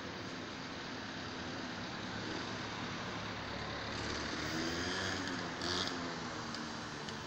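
Steady street traffic noise, with a car's engine swelling and changing pitch as it passes, loudest a little over five seconds in.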